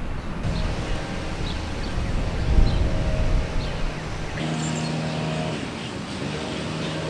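Outdoor ambience: a low wind-like rumble with short bird chirps, then, after an abrupt change about four seconds in, a steady engine drone.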